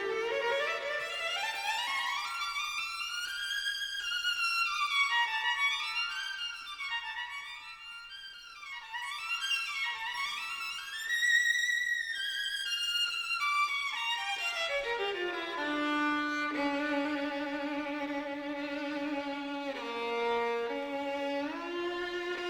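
Background music: a violin playing a slow melody, sweeping up to high notes and back down in the first half, then settling into long held lower notes with vibrato.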